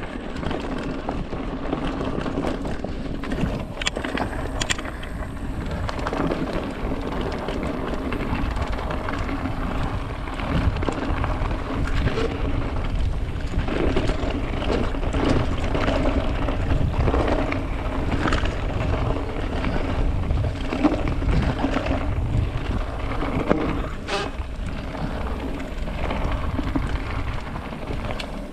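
Mountain bike riding down a rough dirt and gravel track: a steady rumble of tyres over the ground with wind on the microphone, and a few sharp knocks as the bike hits stones.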